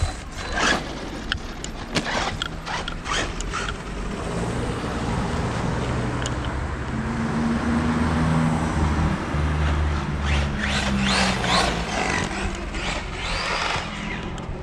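Several sharp knocks and clatters, then a vehicle running on the road, swelling from about four seconds in and easing off near the end.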